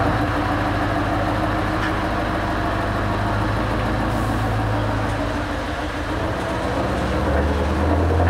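Heavy truck's diesel engine running at low revs as the tractor unit pulls a loaded low-loader trailer slowly past. The low engine note strengthens and gets a little louder near the end.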